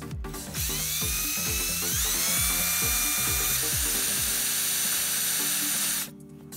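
Cordless drill running as it bores a hole into the metal saddle of a milling machine. Its whine rises in pitch as it spins up, again about two seconds in, and it stops about six seconds in. Background music plays underneath.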